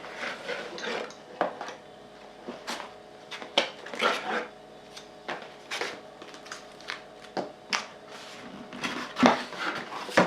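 Items being taken out of a thick cardboard box by hand: irregular knocks, clicks and scrapes of packaging and contents handled one after another.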